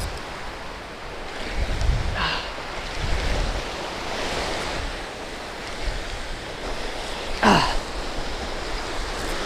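Small surf waves washing onto the beach, with wind gusting over the microphone. A short sharp sound about two seconds in, and a brief falling cry about seven and a half seconds in.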